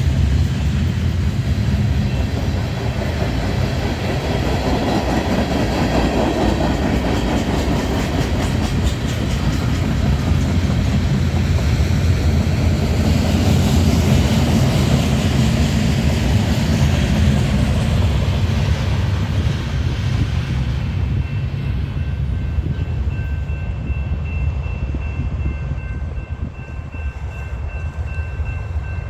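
Freight cars of a BNSF manifest train rolling past, a heavy rumble with wheels clacking over the rail joints. The higher clatter dies away about two-thirds through, leaving a lower rumble.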